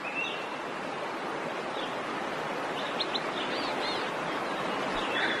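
Outdoor nature ambience: a steady rushing noise with a few short bird chirps, several of them together a little past the middle.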